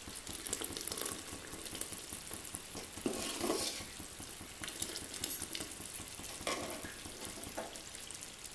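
Hot liquid sizzling and crackling in an aluminium pot on a gas burner while a metal ladle stirs and scoops it, with louder ladle scrapes against the pot about three seconds in and again past six seconds.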